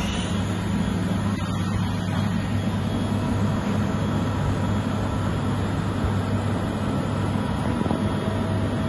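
Hüller Hille nbh 230 R horizontal machining centre running behind its closed enclosure: a steady low hum with an even hiss.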